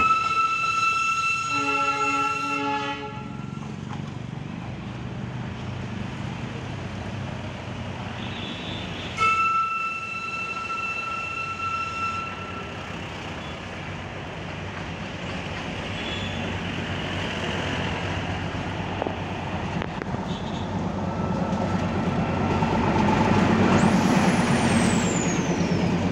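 Darjeeling Himalayan Railway diesel toy train running past: a horn blows twice, each blast about three seconds long, the first joined briefly by a lower horn, over a steady rumble of the engine and road traffic. The sound grows louder as the coaches pass close near the end, with a high squeal falling in pitch.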